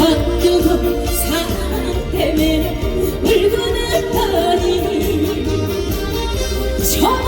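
Trot music from a live band playing loudly through a PA: a gliding lead melody over steady backing.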